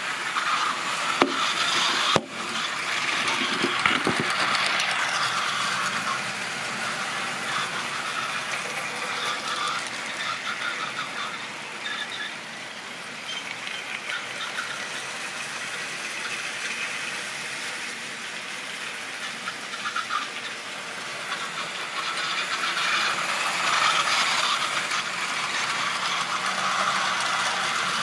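Triang or Lima model trains running: small electric motors whirring and wheels rattling and squealing along the track, louder near the end as a long freight train passes close. Two sharp knocks about one and two seconds in.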